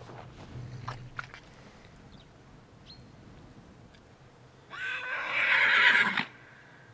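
A Konik horse whinnying once, about a second and a half long, ending in a falling tail: a contact call to herd members it has lost sight of.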